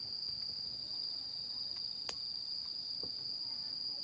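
Crickets chirring in one steady, high-pitched drone, with a single sharp click about two seconds in.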